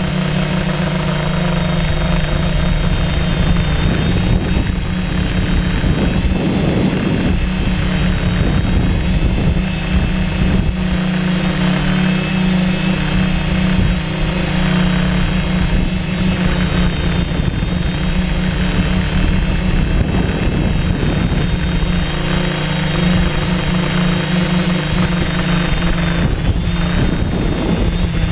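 Drone's electric motors and propellers droning steadily, heard close up: a constant low hum with higher tones and a thin high whine above it, over an uneven low rumble.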